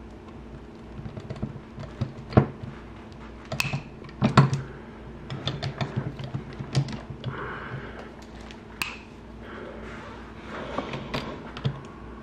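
Sharp clicks and knocks of a long-handled hex crimper being worked to crimp a copper ring terminal onto 8-gauge wire held in a vise, with handling of the tool and wire between the strokes.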